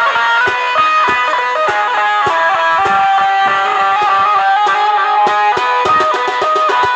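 Amplified Indian banjo (bulbul tarang) playing a fast stepping melody through loudspeakers, over dhol drum beats, with a quick run of drum strokes near the end.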